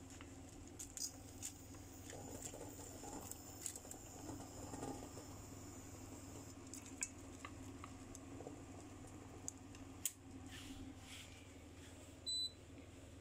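Light clicks and rustling of chopsticks stirring glass noodles in a pan, over a faint steady hum. A short electronic beep sounds near the end.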